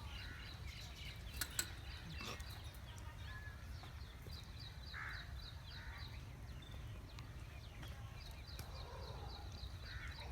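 Birds calling: runs of rapid high chirping lasting a couple of seconds each, with a few short lower calls, over a steady low rumble. Two faint clicks come about a second and a half in.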